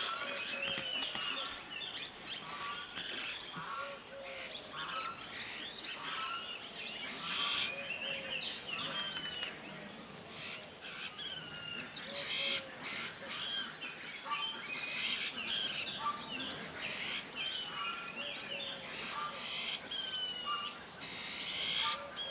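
White-throated laughingthrushes calling, with a juvenile begging: many short chirps and whistled notes overlapping in a busy chatter, broken by a few short hissy bursts.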